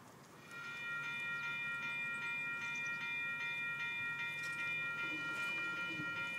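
Railroad crossing warning bell starts ringing about half a second in, struck again and again at about two and a half strikes a second. It is the crossing's warning that a train is approaching.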